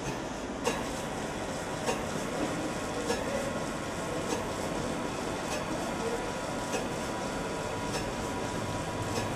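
Roll grinding machine running: a steady mechanical hum and hiss, with faint ticks repeating a little more than once a second.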